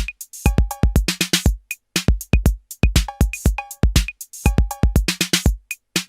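Background electronic music with a drum machine beat: deep kick drum, hi-hat clicks and short synth stabs.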